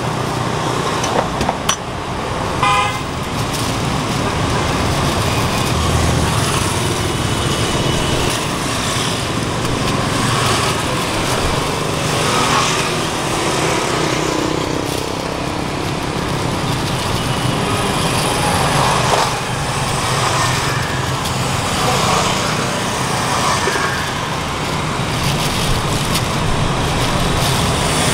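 Steady road traffic passing close by, with a vehicle horn tooting briefly about three seconds in.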